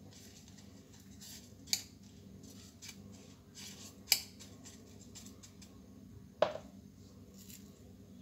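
Hand pressing and turning raw chicken kabab patties in a coarse dry spice coating on a ceramic plate: gritty rustling and scraping of the crushed spices, with three sharp clicks against the plate, the loudest about halfway through.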